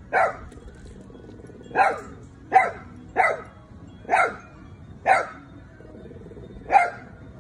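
A dog giving short play barks, seven of them at uneven intervals of roughly half a second to a second and a half, while two dogs play together.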